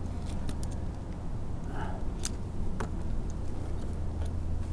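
Light clicks and scrapes of climbing rope and hardware against the tree trunk, over a steady low hum, with a faint distant voice about two seconds in.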